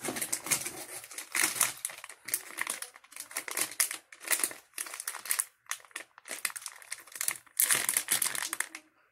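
Plastic packaging pouches crinkling irregularly as they are handled and turned over, with short pauses and a louder stretch near the end.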